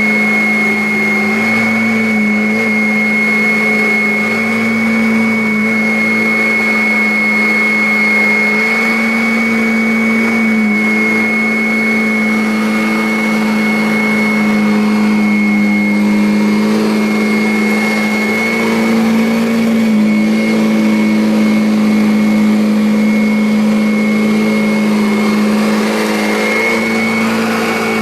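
Kirby Avalir upright vacuum cleaner running steadily while cleaning carpet: a loud motor hum with a high whine above it, the pitch dipping slightly now and then as the load changes.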